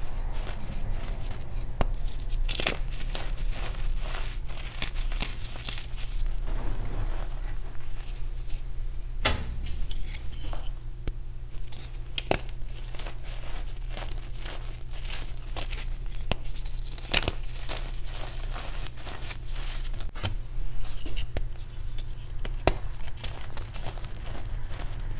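Re-formed gym chalk crunching and crumbling as a bare hand squeezes it: a dense run of dry, irregular crackles with louder sharp cracks here and there as pieces break.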